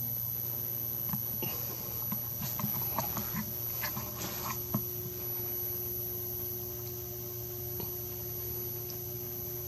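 Steady electrical hum from a PWM-driven HHO electrolysis cell, with scattered light ticks and pops over the first few seconds and a steady higher tone joining about halfway.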